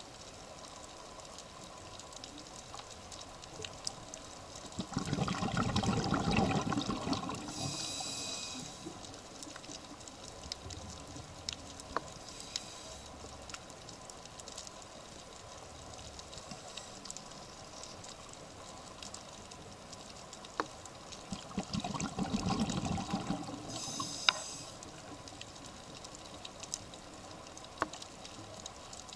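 Scuba diver's exhaled bubbles gushing out of the regulator twice, once about five seconds in and again about sixteen seconds later, each followed by the short hiss of the next breath drawn through the regulator. Scattered faint clicks sound in between.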